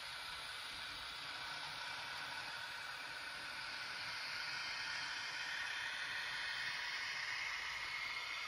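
Z scale model trains running on the layout: a steady, high whirring hiss of tiny motors and wheels on the track, growing a little louder about halfway through.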